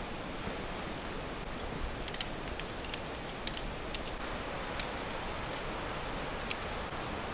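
Steady rushing of a shallow rocky river, with a scatter of sharp clicks from about two seconds in as metal tent pole sections are snapped together and handled.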